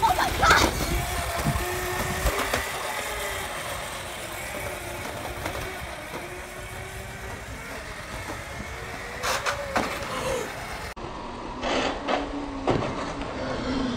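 Electric kick scooter motor whining steadily, its pitch drifting slightly as the speed changes, over rolling rumble and a few knocks. Near the end it switches abruptly to a lower, steady hum.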